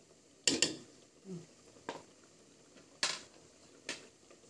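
A spoon clinking against a metal cooking pot in five short, sharp strikes: two quick ones about half a second in, then single ones about a second apart.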